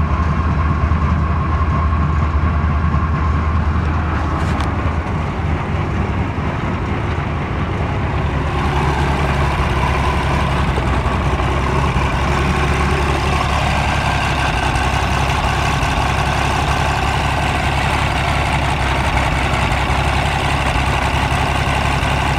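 Large diesel engine of a horizontal wood grinder running steadily, with a steady low drone. About eight seconds in the sound grows brighter and fuller in its upper range.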